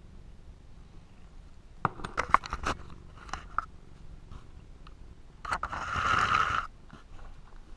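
Cat eating a treat from a small saucer: a run of sharp clicks about two seconds in as it chews and its mouth knocks the dish, scattered single ticks after, then a louder scrape lasting about a second near the end.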